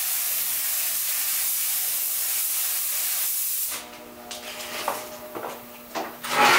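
Paint spray gun hissing steadily as it atomises paint, then cutting off abruptly about three and a half seconds in, leaving a faint steady hum.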